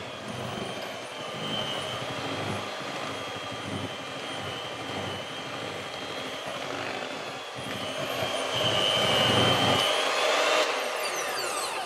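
Bosch electric hand mixer running, its beaters whisking thick chocolate cake batter in a bowl, with a steady motor whine. It gets louder about eight seconds in, and near the end the whine drops in pitch as the motor winds down.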